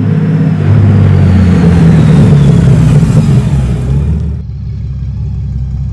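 A motor vehicle's engine running loudly with a deep, steady hum. The sound drops abruptly about four and a half seconds in.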